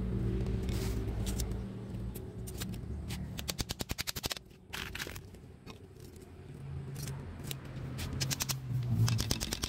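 Small hammer tapping nails into bamboo slats: scattered sharp knocks, with a quick run of light, evenly spaced taps a few seconds in.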